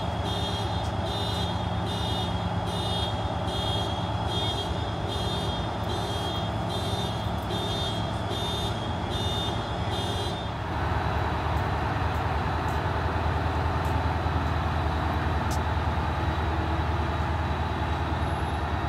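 Siemens Charger diesel locomotive ringing its bell in a steady repeated ding over its running engine. About ten seconds in the bell stops and the engine grows louder and keeps running, as the locomotive works harder.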